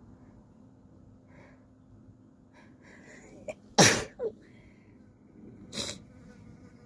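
A person sneezing: one loud, sharp sneeze about four seconds in with a short catch right after, then a second, quieter burst about two seconds later.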